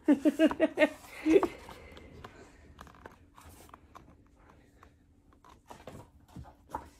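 A woman's voice briefly at the start, then soft handling noises: scattered small clicks and rustles as a picture book is held up to the camera and moved about.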